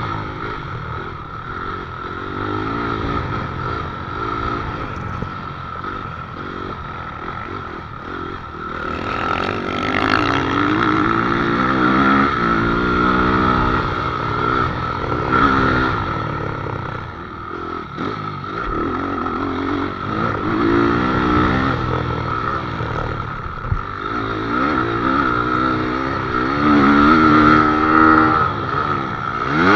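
Motocross bike engine, heard from on the bike as it is ridden hard around a dirt track, the revs repeatedly rising and falling with throttle and gear changes, climbing hard near the end going up a jump.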